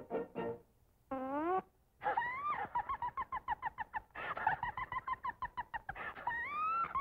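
Cartoon sound effects from an early sound-film soundtrack: a short rising note, then a long run of rapid, high-pitched pulsed squawks, about eight a second, with an upward swoop at the start of each phrase.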